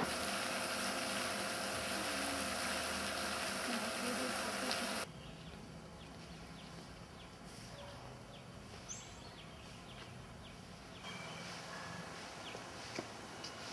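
Steady rushing splash of a fountain jet playing into a pond. It cuts off sharply about five seconds in, leaving quiet outdoor ambience with faint, scattered short bird chirps.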